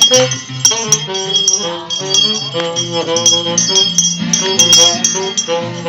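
A Christmas carol played live on instruments, with a melody over a bass line and a bell ringing along.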